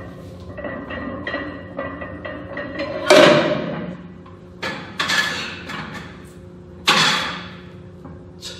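Knocks and scrapes of a loaded barbell and its plates as a lifter pinned under a failed bench press struggles to roll it off. The loudest comes about three seconds in, with three more near five and seven seconds.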